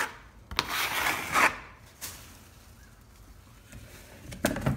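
A blade scraping wet joint compound across a plaster wall, one long stroke starting about half a second in, then a short knock near the end.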